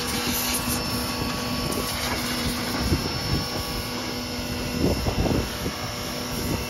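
Electric pressure washer running, a steady motor hum and whine under the hiss of the water jet, rinsing degreaser off the inside of the cab. The low hum cuts out about two-thirds of the way through, with a few dull thumps just after.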